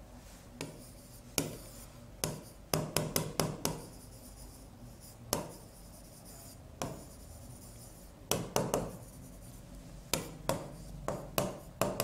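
Marker pen squeaking and scraping on a whiteboard as words are handwritten, in short clusters of quick strokes separated by brief pauses.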